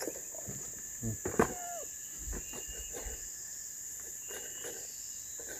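A steady, high insect chorus, with a few handling knocks from a plastic kitchen scale as it is set down on a plastic box. The sharpest knock comes about one and a half seconds in, followed by a brief squeak.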